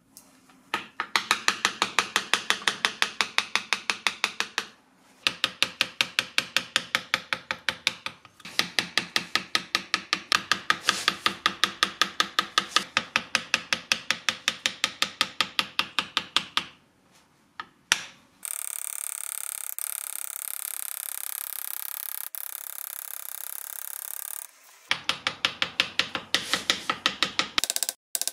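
Engraving tool tapping on a brass plate: fast, even metal strikes, several a second, in long runs with short pauses. Partway through, a steady hiss replaces the tapping for about six seconds, then the tapping starts again.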